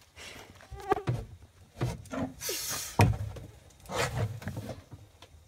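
A bullsnake hissing in a plastic trash can, with one loud hiss about halfway through. Several sharp knocks on the can sound around it.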